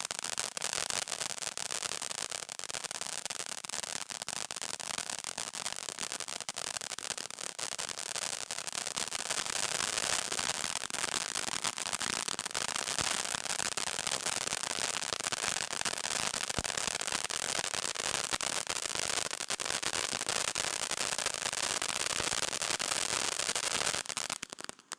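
Cutting Edge Night Party 200-gram firework fountain spraying sparks: a loud, steady hiss thick with rapid crackling clicks. It grows a little louder about ten seconds in and cuts off sharply near the end.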